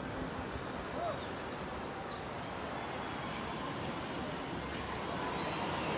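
Steady outdoor ambience of a calm beach: an even background hiss with faint distant sounds and no nearby voice.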